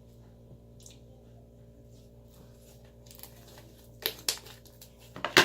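Homemade slime being squished and worked in the hands: quiet handling at first, then a few short wet squelches about four seconds in, the loudest just before the end.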